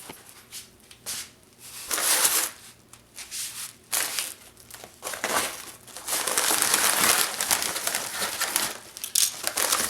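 Cardboard box and plastic packaging being opened and handled: crinkling and rustling in irregular bursts, with a longer spell of continuous crinkling in the second half.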